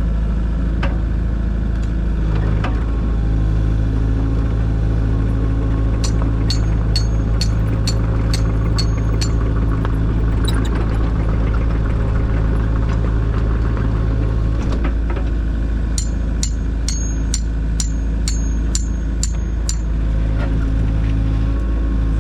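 Kubota KX057-4 mini excavator's diesel engine running steadily under working load. Two runs of sharp, regular clicks, about two a second, come through over the engine, a third of the way in and again near the end.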